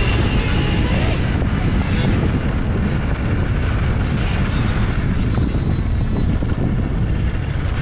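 Steady wind rush and rumble on an onboard camera's microphone as a dirt bike rides over a dirt motocross track, heavy in the lows with no clear engine note.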